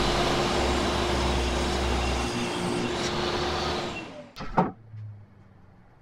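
Table saw ripping a birch plywood board along the fence: steady blade-and-wood cutting noise with a constant whine. About four seconds in the saw is switched off and winds down, and a sharp knock follows shortly after.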